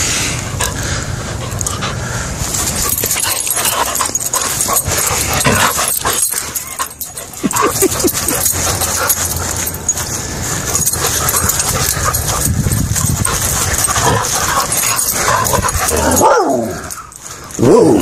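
McNab dog making play noises: short whines and yips, loudest near the end, over a steady rushing noise.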